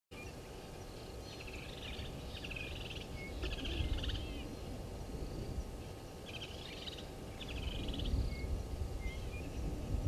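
Wild birds calling in the bushveld: several short bursts of rapid trilled notes, high-pitched, with a few single short whistles between them, over a steady low rumble.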